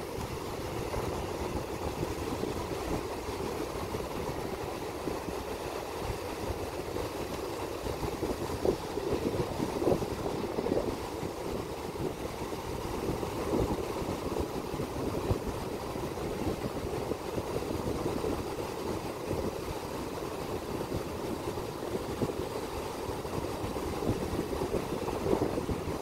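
Gulf surf washing steadily onto a shallow sandy beach, with wind buffeting the microphone as a low rumble.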